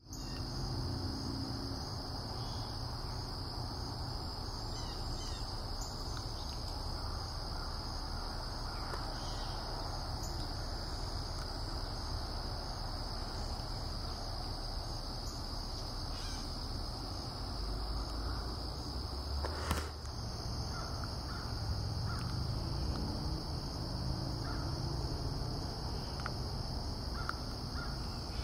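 A steady high-pitched insect drone over a continuous low rumble, with bird calls now and then, and a single sharp click about twenty seconds in.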